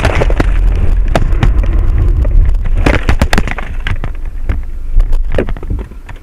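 Aftermath of a car collision inside the cabin: a dashcam that has been knocked off its mount is banging and rattling around, with repeated sharp knocks over the low rumble and noise of the car. Everything fades down near the end.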